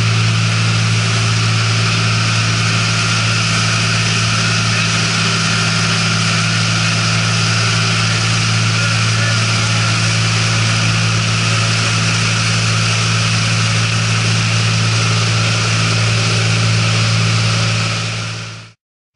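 Engine of a rigid-hull inflatable rescue boat running at steady high speed, a constant low drone under the rush of wind and water spray off the hull. It fades out near the end.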